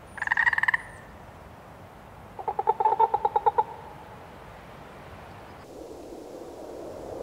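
Frog calling twice: a short, rapid rattling croak, then about two seconds later a longer, lower croak of about a dozen quick pulses. A steady low rushing noise comes in near the end.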